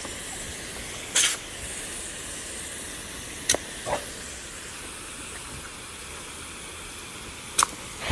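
Garden hose spray nozzle hissing as it sprays a steady jet of water. A few brief sharp sounds stand out above the hiss: about a second in, twice around three and a half to four seconds, and near the end.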